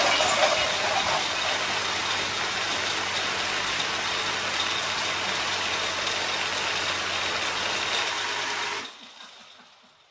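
MOAB, a six-barrel, belt-fed Gatling-style foam dart blaster, firing non-stop in a dense, steady mechanical rattle with a faint motor hum. Darts and ejected shells clatter around it. The firing stops about nine seconds in and the sound trails away.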